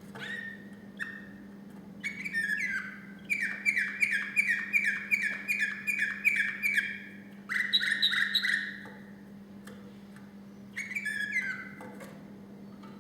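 Male song canary singing tours of repeated falling whistled notes, about four a second. A faster roll comes about eight seconds in, and a short phrase follows near the end, with pauses between the tours. A faint steady hum runs underneath.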